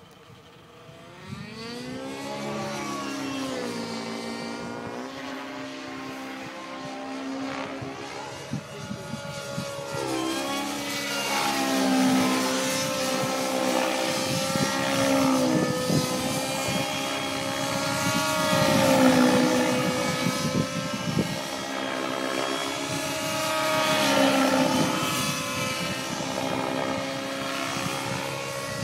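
Align T-Rex 700N nitro RC helicopter flying overhead: engine and rotor drone that comes in about a second and a half in and grows louder, its pitch rising and dipping as the helicopter manoeuvres.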